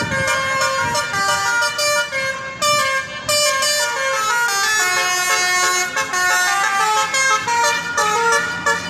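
Tour bus telolet horn, a multi-tone musical air horn, playing a quick tune of several notes at once that step up and down in pitch without a break.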